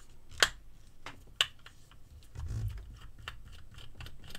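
Small screwdriver clicking on the screws of an LED bulb's LED board as they are worked loose: two sharp clicks about half a second and a second and a half in, lighter ticks between, and a dull handling bump midway.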